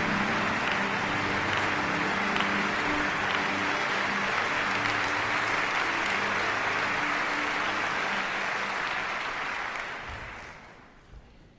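Concert-hall audience applauding, with a few held musical notes sounding underneath in the first seconds. The applause dies away about ten seconds in.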